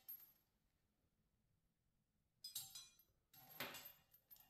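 Faint handling noise from a chrome bathroom faucet and its braided supply hoses being set onto a porcelain sink: light clinks and rubbing in a few short bursts, mostly in the second half.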